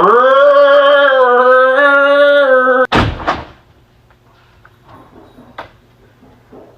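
A person's voice doing a loud, long cow impression, one drawn-out "moo" held for about three seconds, cut off suddenly by a heavy thump like a door slamming. Fainter knocks and thuds follow.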